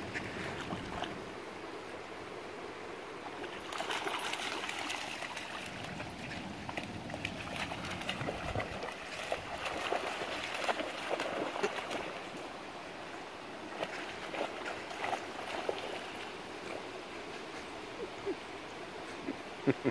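Water splashing and sloshing as a puppy wades and paddles through shallow river water. The splashing is louder for several seconds in the middle, over a steady trickle of moving water.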